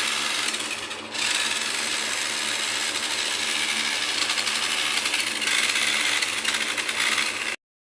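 Small electric motor and gears of a remote-controlled toy monster truck whirring steadily as it drives, easing briefly about a second in, then cutting off suddenly near the end.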